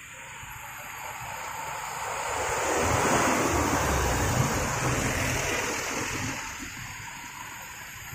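Mitsubishi Colt Diesel dump truck driving past close by: its diesel engine rumble and tyre noise swell over a few seconds, peak in the middle, and fade away, over the hiss of other passing traffic.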